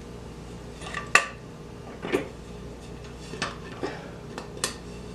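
About half a dozen irregular light clicks and knocks, the loudest about a second in, from a measuring tool handled against a glued-up wooden board while its thickness is measured at several places.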